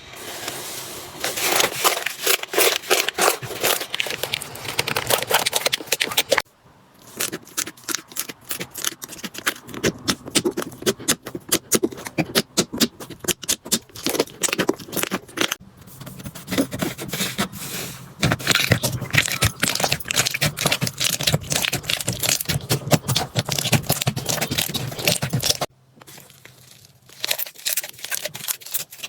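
Slime being squeezed and pressed by hand, with rapid crackling and popping clicks. The sound breaks off briefly twice as one clip gives way to the next.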